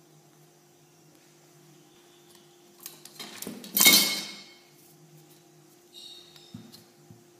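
A short loud clatter of hard objects, metal or glass, knocked together about three seconds in, ringing off over about a second, over a faint steady hum; a few small knocks follow near the end.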